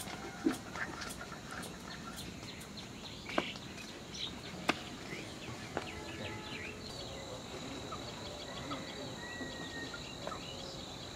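Quiet rural outdoor ambience: scattered bird chirps and a steady high insect drone that sets in about two thirds of the way through, with a few sharp knocks in the first half.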